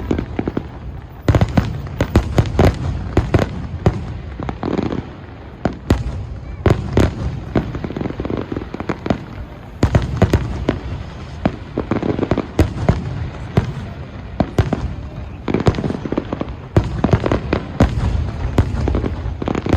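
Fireworks display: a rapid series of bangs and crackling bursts in volleys, with a continuous rumble and echo between them.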